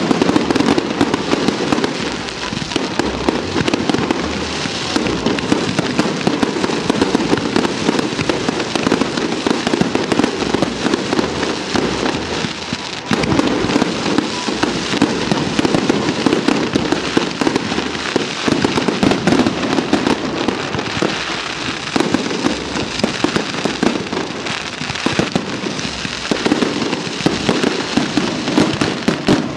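Aerial firework shells bursting in a continuous barrage: a steady stream of bangs and crackle with no pause.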